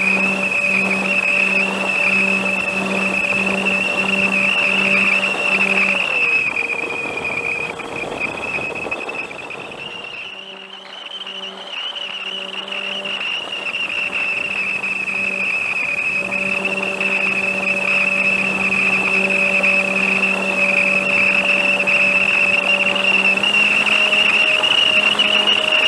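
Twin 1806 brushless motors of an RC park flyer, heard from the onboard camera, running with a high steady whine and a low pulsing hum. About eight seconds in the sound eases off as the throttle comes back, is quietest around ten to twelve seconds, then rises again to full power.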